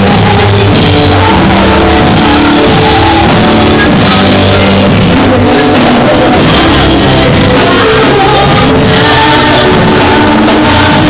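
Loud band music with drum kit and singing.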